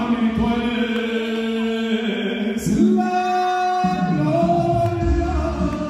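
Mariachi singing into a microphone: a singer holds long notes over backing music, and deeper accompaniment comes in near the end.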